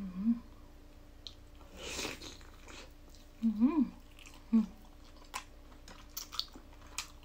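A person chewing soft tofu-based vegetarian mock chicken with wet mouth clicks and lip smacks. There are three short hummed "mm" sounds, at the start, about three and a half seconds in and again a second later, and a breath out about two seconds in.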